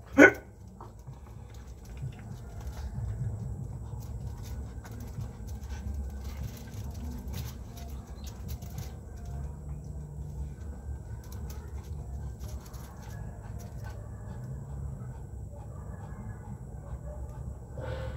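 A dog gives one short, sharp yelp, falling in pitch, right at the start. After it there are only faint scattered clicks and shuffling over a low background rumble.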